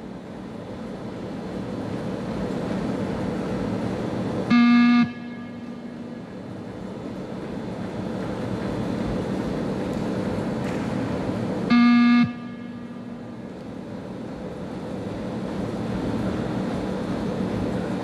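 20 m shuttle-run (beep test) audio signal sounding two short buzzy beeps about seven seconds apart, each about half a second long. Each beep marks the moment the runner must reach the line at the end of a 20 m shuttle. Between the beeps there is a steady hum and hiss of room noise.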